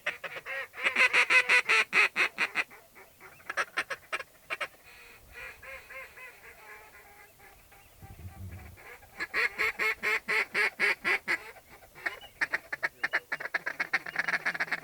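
Duck and goose calling in several bursts of rapid, chattering notes, loudest about a second in and again about ten seconds in.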